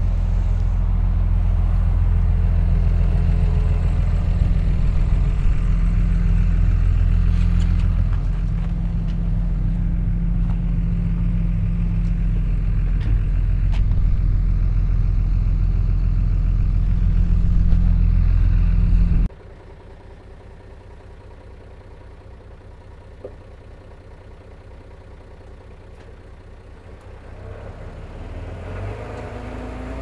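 Heavy diesel earthmoving machinery running: a loud, steady low engine drone. About two-thirds of the way in it drops suddenly to a much fainter low hum, which grows louder again near the end.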